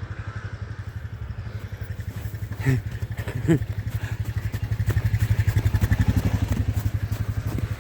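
Snowmobile engines running, one growing louder as a sled comes up about halfway through and easing off toward the end, with two short sharp sounds a few seconds in.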